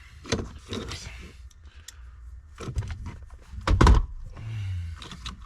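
Clicks and knocks of small plastic and metal parts being handled as an ignition switch and its theft ring are fitted together, with a heavier thump about four seconds in.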